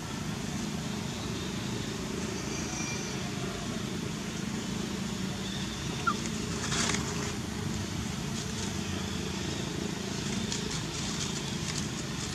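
Dry fallen leaves rustling and crackling in short bursts as a macaque rummages through the leaf litter with its hand, over a steady low outdoor rumble.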